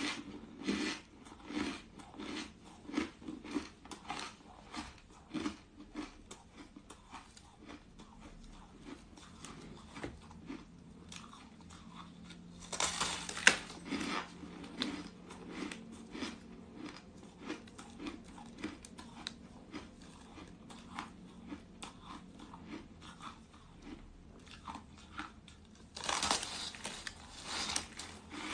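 Crunchy bites into a slab of frosty, snow-like ice, with crackling chewing between them. The loudest bouts of crunching come about thirteen seconds in and again near the end.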